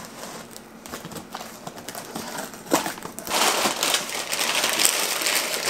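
Cardboard shipping box being opened, with scattered scratches and taps. From about three seconds in, brown packing paper crinkles loudly as it is pulled out of the box.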